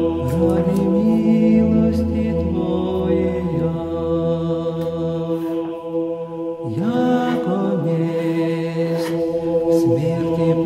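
Background music: Orthodox church chant, voices singing a melody over a steady held drone.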